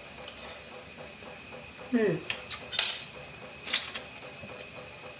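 A few sharp metallic clicks and clinks of kitchen utensils against an aluminium kadai on a gas stove, the loudest a little under three seconds in and another nearly a second later.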